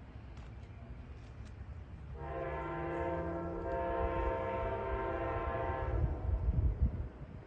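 Horn of the approaching, still unseen Amtrak 92 passenger train: one long multi-tone blast starting about two seconds in and holding for about four seconds. Low rumbling thumps follow near the end.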